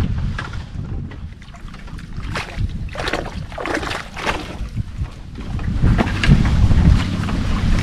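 Wind rumbling on the microphone, with irregular splashing and sloshing of water close by.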